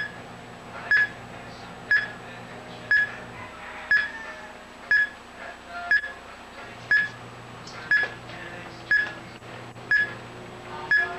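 Arsi Quartz Watch Analyzer, a watchmaker's tester with its probes on a quartz watch movement, giving a short single beep about once a second, in step with the movement's one-second motor pulses. The single beep tone is the tester's normal reading: no dirt and no restriction in the movement.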